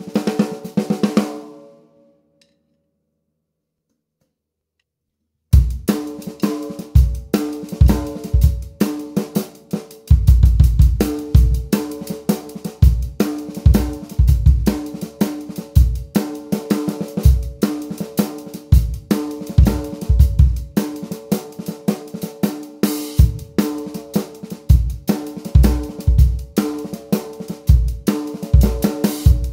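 Drum kit with a 14x6.5 copper snare drum. A busy snare passage dies away in the first two seconds, followed by about three seconds of silence. Then a steady groove of kick drum, snare and cymbals starts, about five and a half seconds in.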